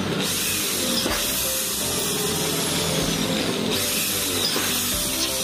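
Corded electric drill running steadily as it bores through an aluminium sliding-door lock stile profile.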